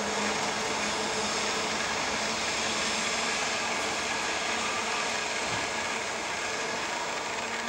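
Steady, even background noise with a faint low hum, like a distant running machine or traffic.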